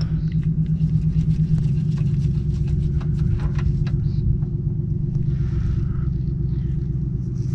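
Steady low rumble from a running motor, with scattered light metallic clicks of a wrench loosening and unscrewing a Mercedes 190E differential's fill plug.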